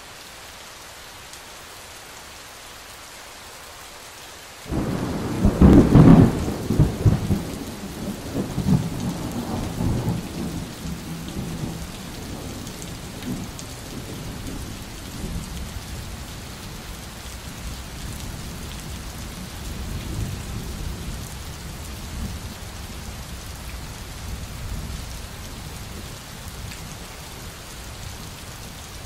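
Steady rain. About five seconds in, a thunderclap breaks and rolls on in long low rumbles that slowly fade, with further low rumbling under the rain.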